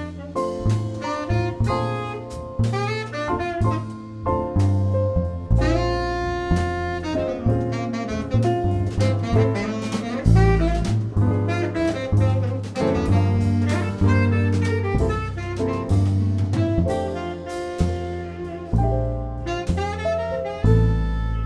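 Jazz combo playing an instrumental solo chorus: a melodic lead line over a bass line and drum kit, with no vocals.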